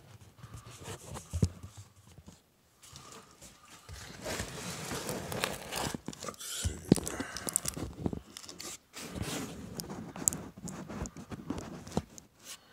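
Rustling and scraping of a phone microphone rubbing against clothing as the phone is handled, with scattered sharp knocks and clicks. It is busiest in the second half.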